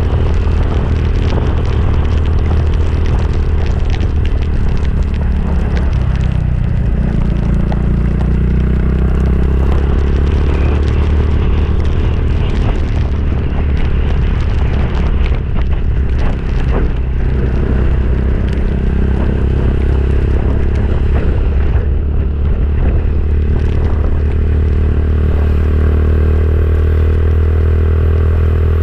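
Motorcycle engine running steadily under way, with a deep constant hum and scattered rattles and road noise.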